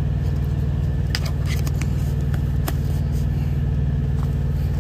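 Steady low hum of an idling truck engine heard inside the cab, with a few light clicks and rattles from a seasoning jar being shaken and capped between about one and three seconds in.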